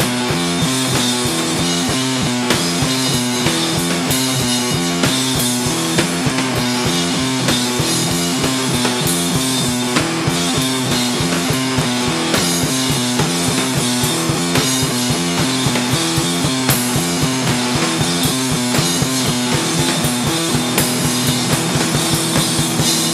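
Sludge punk music: distorted electric guitar over a pounding drum kit, dense and loud with a steady beat.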